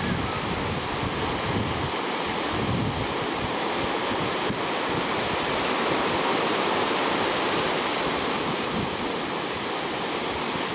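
Ocean surf breaking and washing through the shallows, a steady rush of white water, with wind buffeting the microphone.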